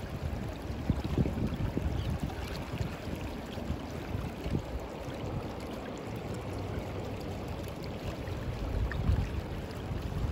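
Wind buffeting the microphone in uneven gusts over the steady rush of river current.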